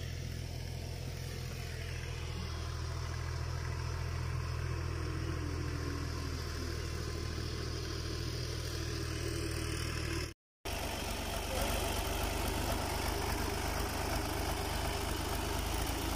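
Farm tractor's diesel engine running steadily at an even pitch. The sound cuts out for a moment about ten seconds in and comes back a little louder.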